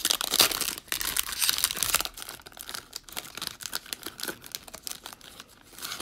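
A Prizm trading-card pack's wrapper crinkling and tearing open, loudest in the first two seconds, followed by lighter rustling and clicking as the cards are handled.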